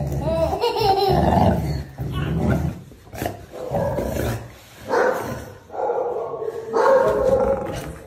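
A dog vocalizing in play: low growls mixed with higher drawn-out calls, in several bouts of a second or two.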